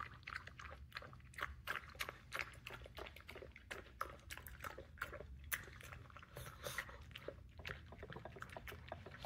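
Pug eating soft wet food from a bowl: irregular short, wet smacks and clicks of chewing and licking, several a second.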